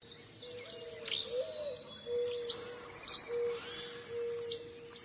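Birds chirping: short, sharp high calls every second or so, over a lower held note that keeps stopping and starting.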